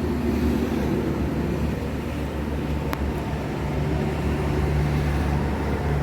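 Steady low hum of a running vehicle engine, with a single sharp click about three seconds in.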